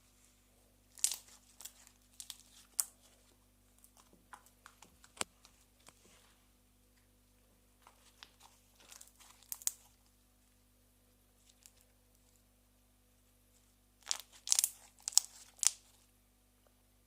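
Slime worked by hand, giving bursts of crackling, popping clicks in four separate clusters with quiet between them, the loudest near the end.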